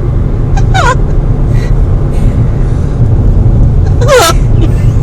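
A woman hiccuping twice: two short squeaky calls falling in pitch, a faint one just under a second in and a louder one about four seconds in. A steady low rumble runs underneath.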